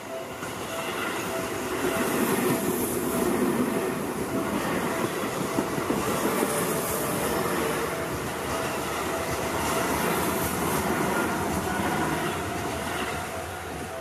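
Seibu 20000 series electric commuter train passing on curved track. The rolling noise of its wheels on the rails swells about a second in and dies away near the end. A level-crossing bell rings in a steady repeating pattern behind it.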